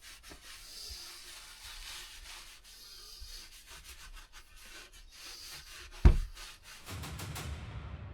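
Slow back-and-forth rubbing strokes, about one every two seconds, then a single loud thump about six seconds in, followed by a rougher low rumble.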